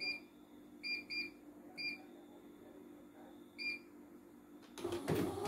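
Control-panel beeps from a CNY E900 embroidery machine as its keys are pressed to set a slow stitching speed: five short, high single-pitch beeps, the last about a second before the end. Near the end the machine starts running.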